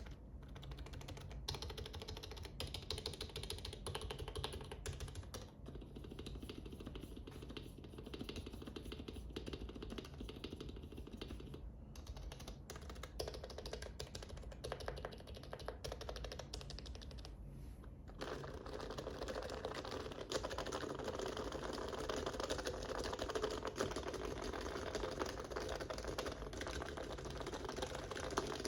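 Continuous typing on a Norbauer Heavy Grail keyboard with Deskeys Tiffany 35g rubber domes, HHKB Pro Classic sliders and lubed rails. The Topre-style electrocapacitive switches give a soft, muted thock. The keystrokes grow denser and louder about two thirds of the way through.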